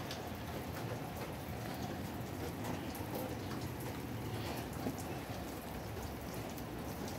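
Steady rain falling, an even hiss with many small drop ticks scattered through it.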